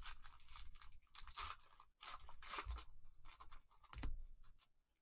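Foil wrapper of a Donruss Optic basketball card pack crinkling and tearing open, in several irregular bursts with the loudest about four seconds in.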